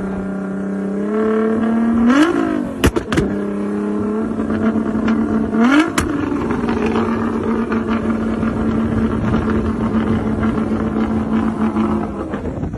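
Modified Nissan GT-R engine held at raised revs, blipped sharply upward twice (about two and six seconds in), with loud exhaust cracks after each blip, then held at a steady high rev for several seconds.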